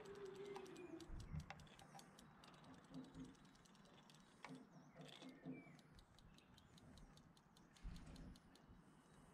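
Faint rapid ticking, roughly eight to ten clicks a second, from the tail mechanism of a battery-powered Zuru Robo Fish toy; the ticking thins out and stops about six seconds in, leaving near silence with a couple of soft low thumps.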